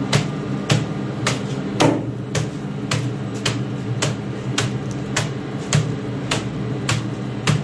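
Steady, even chopping strokes of a heavy knife or cleaver on a board, a little under two a second, over a steady low hum.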